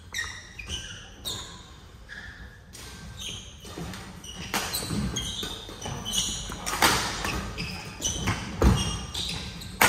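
Badminton rally in a large, echoing hall: repeated sharp cracks of rackets striking the shuttlecock, coming faster and louder in the second half, with short squeaks of court shoes on the mat between them.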